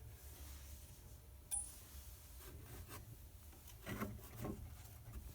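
Faint rubbing as soldering flux is brushed onto a copper pipe, with one light click about a second and a half in.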